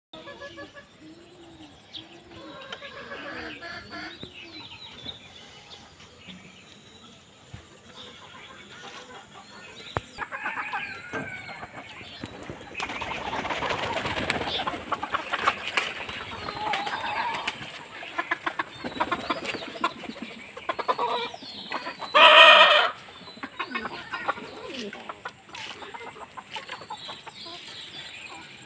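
Domestic chickens (hens and a rooster) clucking on and off, with a spell of wing flapping and scuffling in the middle. One loud squawk stands out about two-thirds of the way through.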